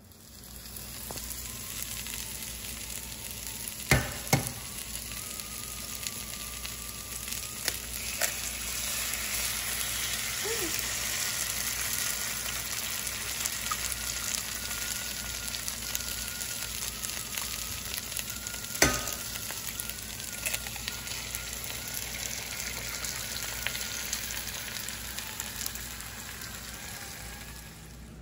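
Food sizzling and frying in a pan, a steady hiss throughout, with two sharp clicks of a utensil, one about four seconds in and another about two-thirds of the way through.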